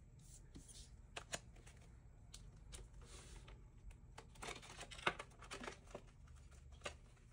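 Paper money, a card and a clear plastic ring binder being handled: faint rustling and crinkling with scattered light clicks, the sharpest about five seconds in.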